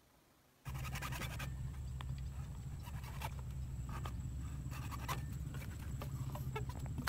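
Hand hacksaw rasping through PVC pipe in irregular scratchy strokes, with clicks of plastic pipe being handled, over a steady low hum. The sound starts abruptly under a second in.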